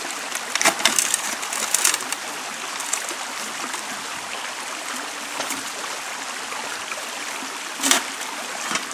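Steady rush of a shallow flowing creek, with hand-stirred water splashing in a plastic gold pan as the sluice's lower end is rinsed into it. There are several short splashes in the first two seconds and a sharper one near the end.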